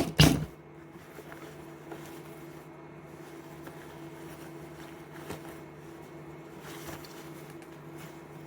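Electric sewing machine stitching a jacket's lining closed: a short, loud burst of stitching in the first half-second, then a steady low buzzing hum.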